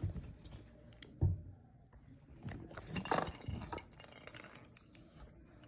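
Small objects being handled: a single light knock about a second in, then a few seconds of soft clinking and rustling.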